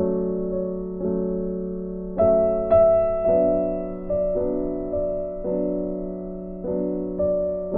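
Slow, soft piano music: chords struck about once a second, each ringing out and fading before the next.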